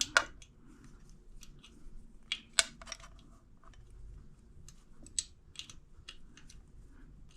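Irregular small metallic clicks and taps of a hand tool on the cam chain tensioner's locking bolt of a Honda CB750 F1 engine as the bolt is nipped up, the sharpest near the start and about two and a half seconds in.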